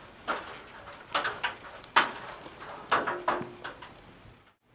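Hands working at a recessed ceiling downlight fixture with its CFL lamps: a series of sharp clicks, knocks and light scrapes, one leaving a brief ringing tone a little after three seconds in.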